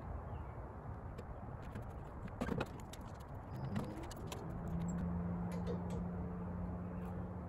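Skis being lifted out of a hitch-mounted ski carrier box: a few light knocks and clatters over steady outdoor background noise. A steady low hum comes in about halfway through.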